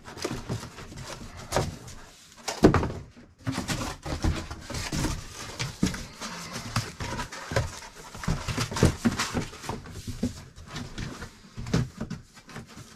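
Cardboard packing being handled and pushed back into a large shipping box: irregular rustling, scraping and knocks, with one sharper thump about three seconds in.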